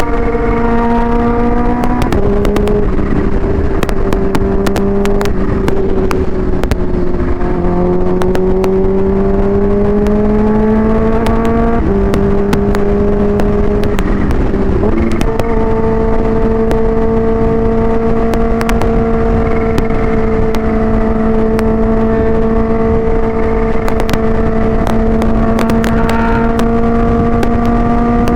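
Supercharged Kawasaki Ninja H2 with a Vandemon exhaust riding at fairly steady revs, its engine note stepping down, climbing slowly and settling several times as the throttle and gears change. Constant wind noise and buffeting on the rider's microphone.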